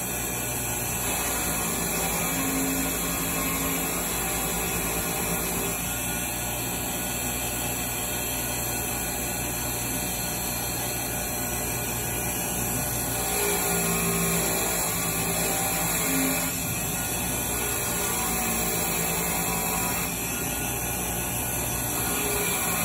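A 3/4 hp, 3450 rpm bench grinder running steadily, with the small steel jaw parts of a pipe wrench held against its wheel. The sound shifts a few times as the part is pressed to the wheel and taken away.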